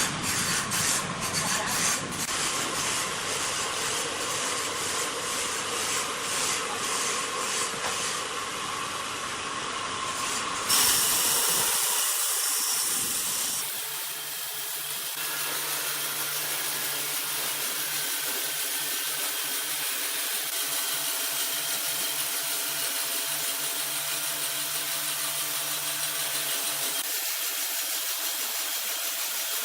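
Woodworking machinery running steadily, with wood being worked. The sound changes abruptly about eleven seconds in, to a different steady machine noise with a low hum.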